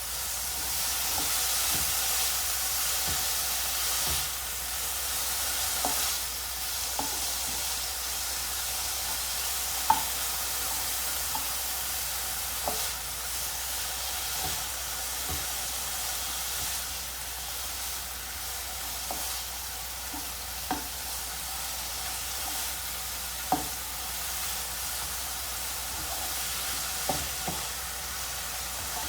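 Chopped chicken, beef and fish cake sizzling steadily as they are stir-fried in a pan with garlic and shallots, browning until the meat changes colour. Occasional sharp clicks of the stirring utensil against the pan sound through the sizzle.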